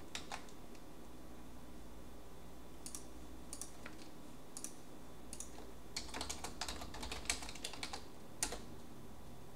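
Computer keyboard keystrokes: a few scattered key presses, then a quick run of typing about six seconds in, entering a git clone command in a terminal.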